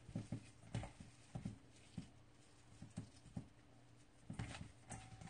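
Imitation crab sticks being torn and crumbled by hand in a stainless steel bowl: faint, irregular soft taps and knocks of fingers and crab meat against the bowl.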